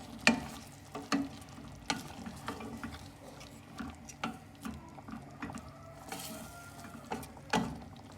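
Stirring a pan of chicken, onions and spices cooking in oil with a little added water, with irregular knocks and scrapes of the utensil on the pan over a light sizzle.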